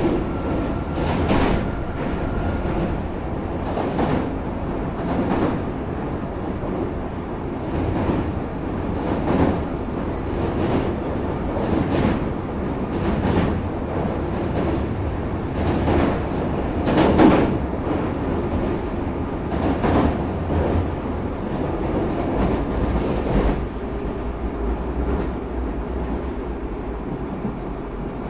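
Osaka Metro 30000 series electric train running at speed: steady wheel-and-rail rumble with a rhythmic click of the wheels over rail joints about every 1.3 seconds. A steady hum sets in near the end.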